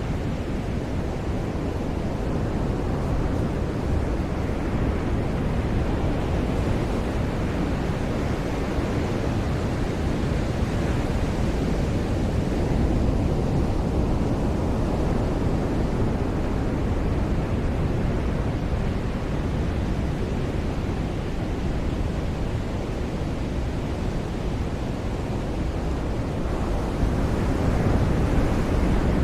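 Ocean surf washing onto a beach: a steady rushing wash of waves, swelling slightly about halfway through and again near the end.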